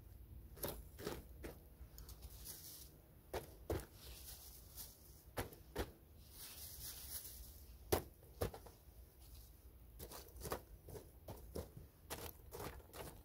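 A wooden stick poking and raking charcoal embers in a small steel brazier: irregular clicks, knocks and scrapes, some in quick clusters, with the coals clinking against one another.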